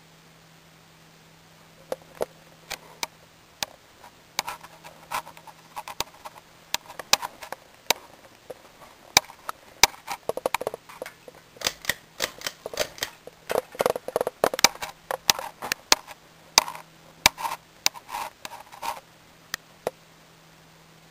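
Irregular sharp clicks and clinks, some with a short ring, from the glass shades and brass fittings of a ceiling fan's light kit being handled up close. They come thickest in the middle, over the ceiling fan motor's faint low hum.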